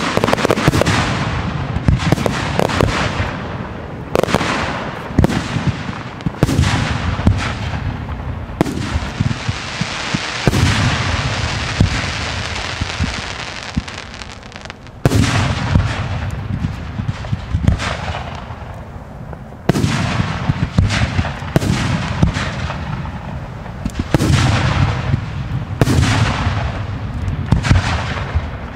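Fireworks display: aerial shells bursting in quick succession, sharp bangs about once a second, with a stretch of dense continuous crackling and hiss from about nine to fourteen seconds in before the bangs resume.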